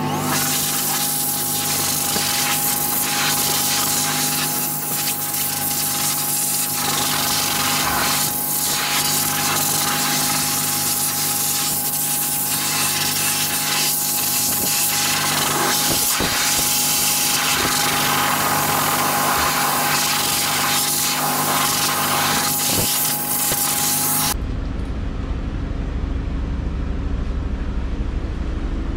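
Pet blow dryer blowing air onto a dog's coat: a loud, steady rush of air with a steady high whine. It stops abruptly about 24 seconds in, leaving a lower steady hum.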